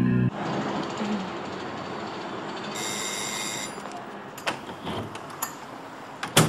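Outdoor urban background noise once the music cuts off, with a brief high squeal a little under three seconds in. A few sharp knocks follow near the end, the last the loudest.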